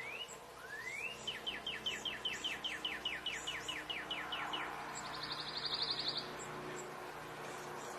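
Northern cardinal singing: one rising whistle, then a long run of quick down-slurred whistles, about five a second. A brief, faint, high, fast trill comes in about five seconds in.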